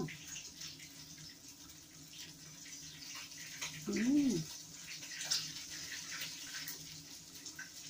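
Steady rushing hiss like running water, with faint crackles as crisp fried chicken wings are pulled apart by hand, and a short hummed "mmm" about four seconds in.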